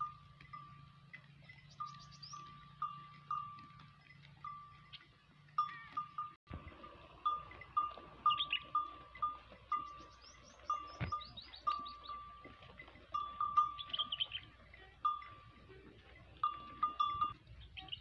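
A bell worn by grazing sheep clanks over and over at one pitch as the flock moves and feeds, each strike short and fading. A few high chirps sound twice above it.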